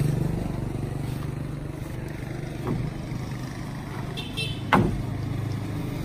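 Steady low hum of a vehicle engine idling, with a faint knock about halfway and a sharp, loud knock near the end as wooden door frames are shifted against the pickup bed.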